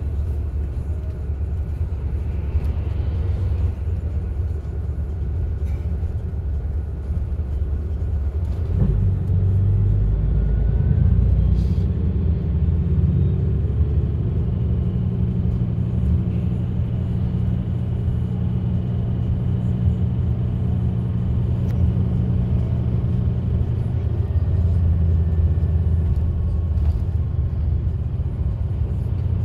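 Bus driving along a road, heard from inside the cabin: a steady low rumble of engine and tyres. The drone grows louder about nine seconds in and holds steady.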